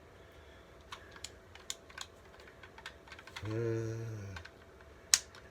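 Scattered light clicks and taps as a Milwaukee M12 FUEL cordless ratchet is handled, with a steady low hum lasting about a second past the middle and one sharp click near the end.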